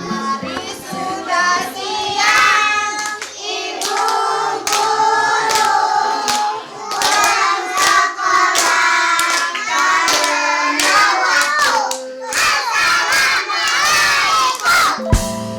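A group of children singing together and clapping their hands along with the song.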